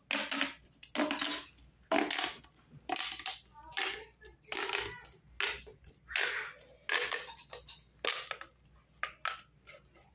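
Corrugated plastic pop tube toy being squashed and stretched by hand: a string of short rasps, roughly one a second.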